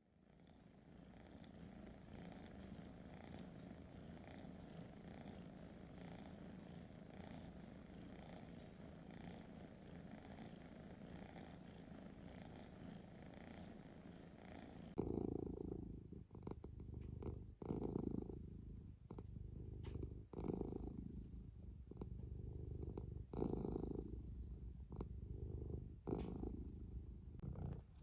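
Domestic cat purring close to the microphone. Halfway through it changes to a louder purr that swells and fades about once a second with the cat's breathing, with a few faint clicks.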